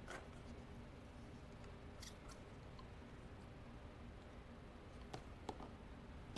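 Near silence with faint room tone and a few small clicks and taps from a plastic syringe and tubing being handled: a pair about two seconds in and another pair about five seconds in.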